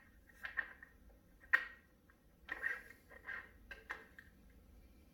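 Roller lifters in their guide tray being slid down into the lifter bores of a bare LQ4 V8 block: a scattered series of light clicks and knocks as they seat, the sharpest about a second and a half in.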